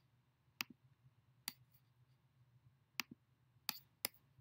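Sharp computer mouse clicks, about six of them, irregularly spaced and faint, with a low hum beneath.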